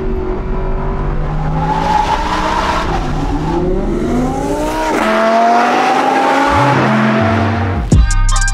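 High-revving sports-car engine accelerating hard: the revs climb, drop at a gear change about five seconds in, then climb again and drop near seven seconds. Music with a drum beat comes in at the very end.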